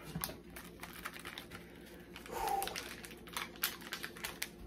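Irregular light clicks and taps, with a short muffled vocal sound about halfway through.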